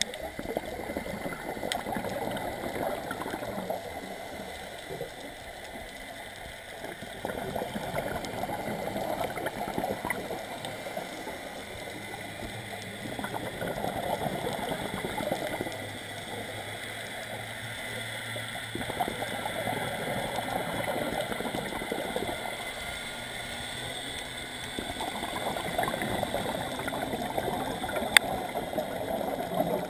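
Scuba regulator breathing underwater: five bubbling exhalations, each a few seconds long, about every six seconds, with quieter inhalations between. One sharp click near the end.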